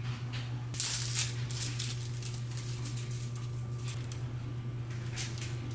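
A thin clear plastic piece being handled, rustling and clicking in short bursts about a second in and again near the end, over a steady low hum.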